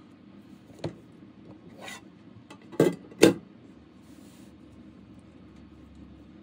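Handling sounds of a baked cake in baking paper on a wooden board: a click, a brief rustle of the paper, then two loud knocks in quick succession about three seconds in.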